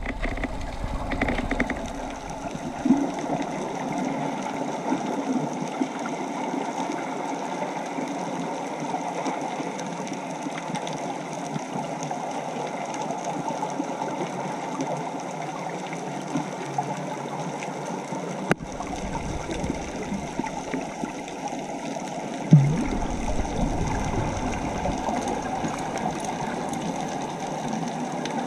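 Steady, muffled underwater noise picked up by a camera in its waterproof housing, with a constant mechanical hum through it. There are two brief thumps, one about three seconds in and one near the end.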